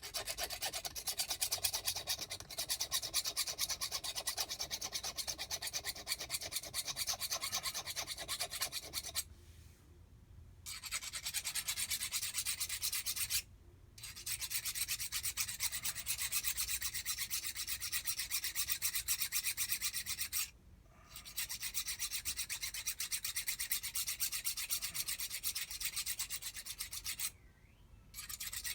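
A small half-round hand file rasping burrs off a metal jet ski pump part in quick back-and-forth strokes. The filing comes in four runs broken by short pauses.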